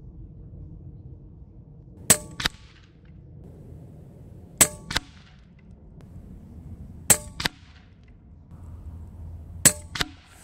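Four shots from a Daystate Pulsar .22 electronic bullpup PCP air rifle on medium power, about two and a half seconds apart. Each sharp crack is followed about a third of a second later by a quieter crack of the pellet striking the target downrange.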